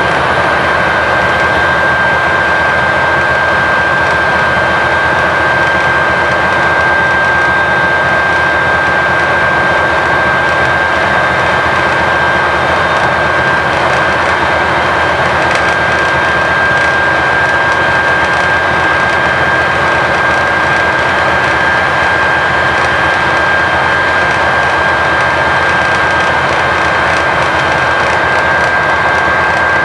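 Volvo B9TL double-decker bus's six-cylinder diesel running hard at steady motorway speed, heard inside the passenger saloon, together with road noise and a steady high whine.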